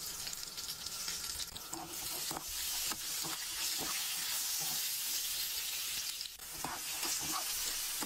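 Fries and a burger frying in a pan of grease: a steady sizzle with a few light clicks of a utensil in the pan.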